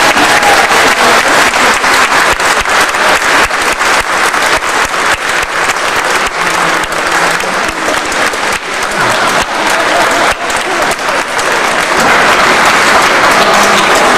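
A large audience clapping: loud, dense, sustained applause that eases a little midway and swells again near the end.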